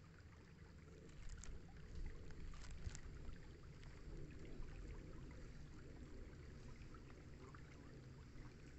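Faint steady low rumble of outdoor background noise, with a few light clicks between about one and three seconds in.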